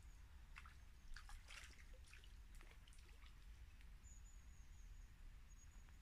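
Near silence with faint, scattered ticks and small splashy sounds as a small perch is played and reeled in on a light ledger rod, over a low rumble.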